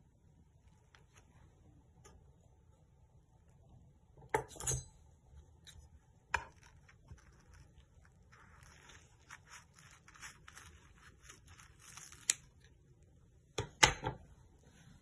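A knife cutting through a toasted sandwich: a scratchy crunching of the toast crust for about four seconds in the middle, with a few sharp taps and knocks of the knife and bread against the plate before and after it.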